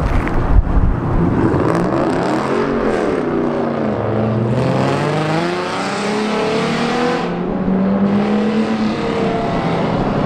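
Chrysler 300 sedan's engine revving hard as it pulls away. The pitch climbs, drops at each upshift and climbs again several times.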